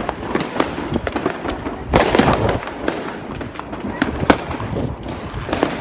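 Fireworks and firecrackers going off in quick succession: many sharp bangs and pops, with a dense crackling burst about two seconds in and a single loud bang a little after four seconds.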